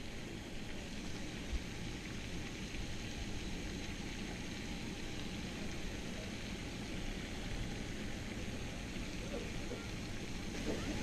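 Steady outdoor background noise with a low rumble, and a single short thump about a second and a half in.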